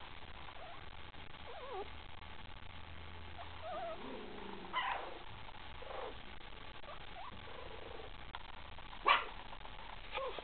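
27-day-old puppies whimpering and squeaking: a string of short, faint whines that bend in pitch, with one louder yelp about nine seconds in.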